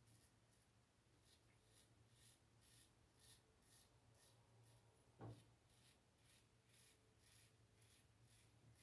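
Faint scraping of a Karve SB-C safety razor through lathered stubble, in short strokes about twice a second. A single soft thump comes about five seconds in.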